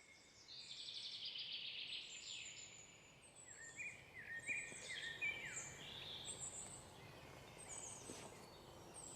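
Faint birdsong: a rapid trill in the first couple of seconds, then a run of short repeated whistled notes, each gliding down, with thin high chirps above.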